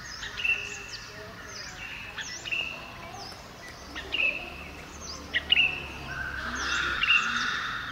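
Small birds chirping repeatedly outdoors: short, high notes with quick downward sweeps, coming every second or so over a steady background hiss. The hiss swells near the end.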